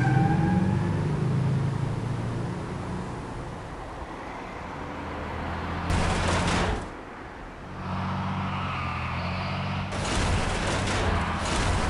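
Layered action-film sound effects: a vehicle rumble fading away, a sudden loud burst about six seconds in, then a low rumble under rapid gunfire starting near the end.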